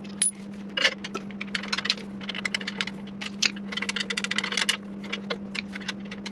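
Small clicks, taps and scrapes of a black-knobbed handle screw being threaded by hand into a pressure washer's metal frame, with a quick run of clicks about four seconds in. A steady low hum runs underneath.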